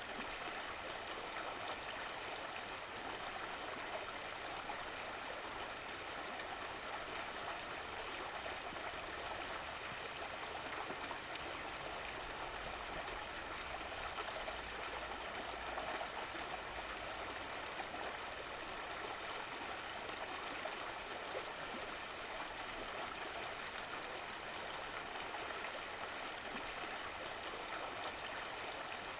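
Running water of a stream, a steady even rush with small trickling and gurgling.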